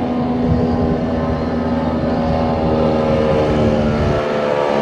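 Two-stroke outboard motor on a duck boat running at high, steady revs: one steady engine note with a slight rise in pitch near the end.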